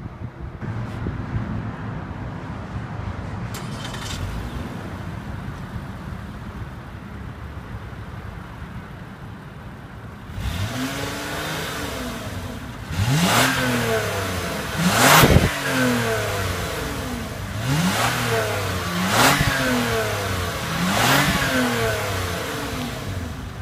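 A 2014 Lexus ES 350's 3.5-litre V6 idling steadily, heard from inside the cabin. About ten seconds in it is heard at the twin exhaust tips and is revved about five times, each rev rising and falling in pitch.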